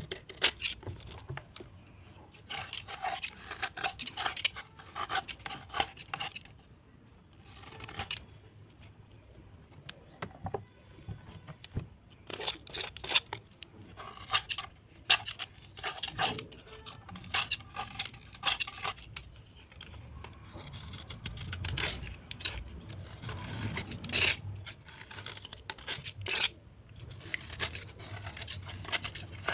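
Crunching and scraping of a soaked, earthy block of clay or chalk, a dense run of irregular crackly clicks and rasps broken by a couple of short pauses.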